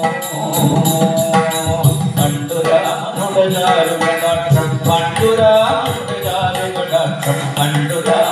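Ottan thullal music: a sung verse in a chanting style over drum and small hand cymbals keeping a steady beat.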